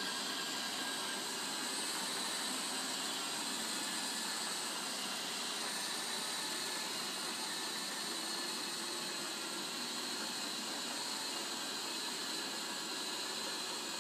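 Roomba 780 robot vacuum running steadily as it returns to its charging dock, its vacuum motor giving an even hiss.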